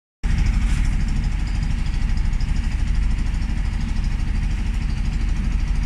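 An engine idling steadily, a low sound made of fast, even pulses.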